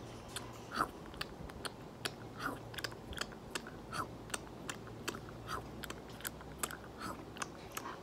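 Pet parrot making its mimicked chomp and chewing noise: a string of sharp clicks, several a second, with short squeaky chirps mixed in.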